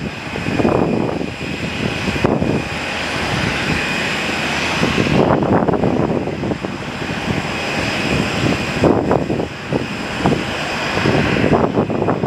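Jet airliner engine noise: a steady high-pitched whine over a rushing rumble that swells and dips, heard while the Boeing 737-800 is pushed back by its tug.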